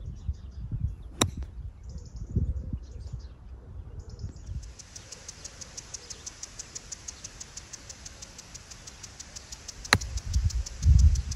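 Two crisp clicks of a golf club striking the ball, about a second in and again near the end, on short pitch shots. Low rumbling runs underneath, and from about four seconds in a fast, even, high-pitched chirring goes on in the background.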